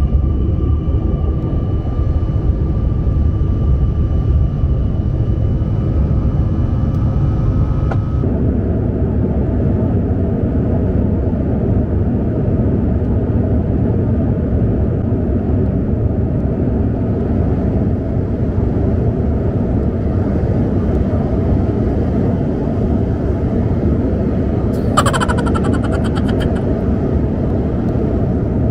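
Jet airliner cabin noise: engines and rushing air, a loud steady rumble. A faint steady whine sits over it at first, and the sound changes abruptly about eight seconds in. A brief burst of rapid high ticking comes near the end.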